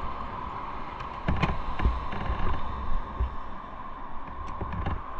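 Motorcycle on the move: a steady whine and rumble with wind noise on the microphone, broken by several thumps and knocks between about one and three seconds in.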